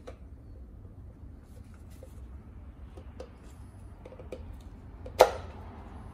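Ford 2.7 EcoBoost oil filter cartridge being pressed into its canister by gloved hands: a few faint clicks and rubs, then one sharp snap about five seconds in as the filter seats.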